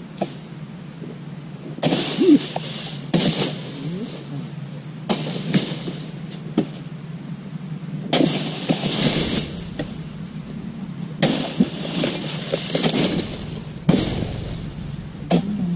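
An oil palm harvester's dodos, a chisel blade on a long pole, being jabbed again and again into the base of a palm frond: a run of separate chopping strikes with cracking and rustling. Partway through, a large palm frond is cut free and comes down with a rustling crash.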